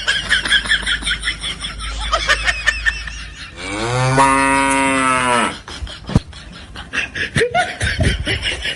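A cow mooing once, one long call of about two seconds starting a little before halfway through, dubbed in as a comedy sound effect.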